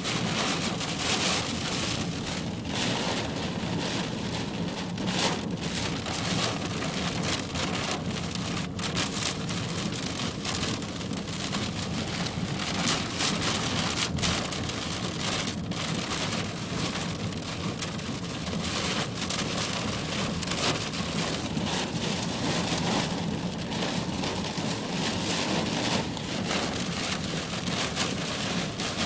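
Heavy thunderstorm rain falling steadily, a dense hiss of many drops striking.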